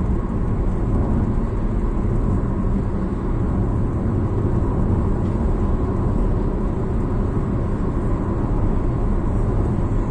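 Steady road noise of a car cruising on a highway, heard from inside the cabin: an even low rumble of tyres and engine that does not change.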